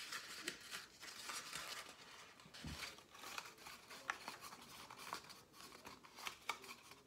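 Faint rustling of colored paper with scattered light clicks as rolled paper tubes are handled and set on a tabletop, and a soft thump about two and a half seconds in.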